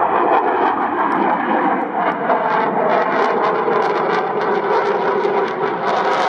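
Dassault Rafale fighter's twin jet engines in a display pass: a loud, steady rushing noise with a crackle that grows after about two seconds.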